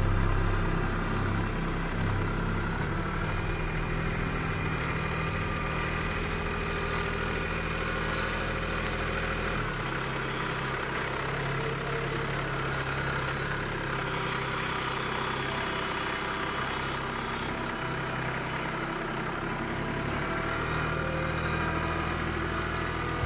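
Kubota B2261 compact tractor's three-cylinder diesel engine running steadily while the LA424 front loader raises and lowers its bucket. The deep engine hum eases about ten seconds in and fills back out near the end.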